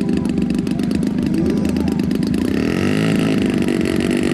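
Engine of a large aerobatic RC airplane, propeller turning, running at low speed with a rapid even firing pulse, then revving up a little past halfway through.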